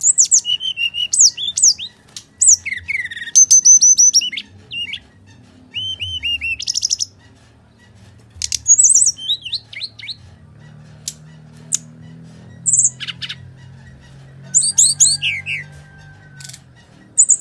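Brown-chested jungle flycatcher singing its full, aggressive fighting song: bursts of fast, high-pitched chirps, trills and sweeping whistles broken by short pauses.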